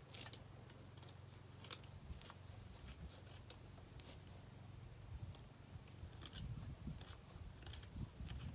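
Quiet, scattered knife cuts shaving a hardwood handle block by hand: short, dry scraping strokes at irregular intervals. A low rumble runs underneath and grows rougher near the end.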